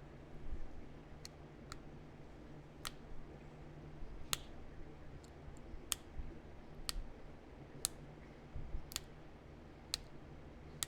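Flintknapping: sharp little clicks of flakes popping off a heat-treated chert point, most likely pressure flaking, about one click a second over a faint low hum.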